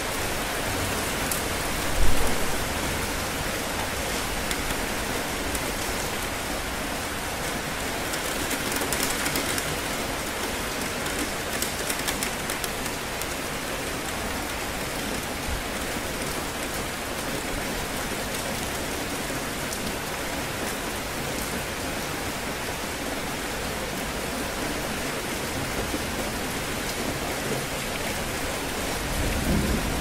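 Steady heavy rain falling in a summer thunderstorm. A sudden thunderclap comes about two seconds in, and a low thunder rumble builds near the end.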